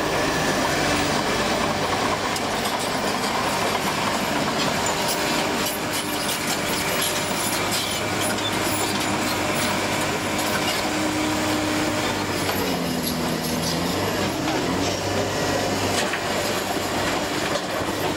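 Crawler earthmoving machinery working: diesel engine running under steady load, with the clanking and squealing of steel tracks. About thirteen seconds in, the engine pitch dips and then recovers.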